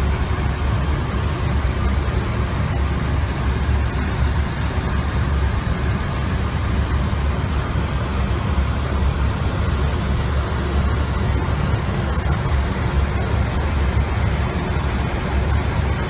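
Steady, deep rushing noise of air and engines on an airliner's flight deck at cruise altitude.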